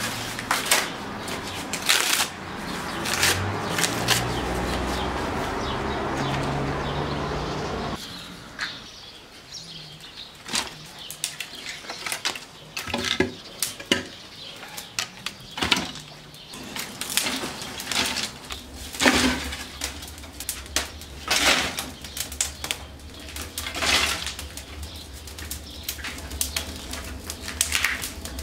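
Dry reeds and sticks catching and burning inside a clay tandoor oven. A dense rustling comes first and stops about eight seconds in; after that come irregular sharp crackles and snaps as the fire takes hold.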